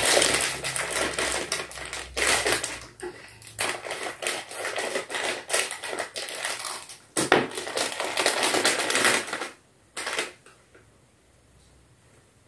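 Plastic snack packet crinkling and rustling as it is handled and torn open, in a dense run of crackles that stops after about ten seconds.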